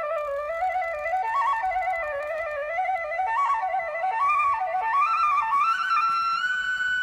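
Background music: a single flute-like melody line moving in small steps, climbing near the end and settling on a long held note.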